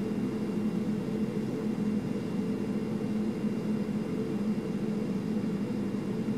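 Steady low mechanical hum, with a faint high steady tone above it and no change throughout.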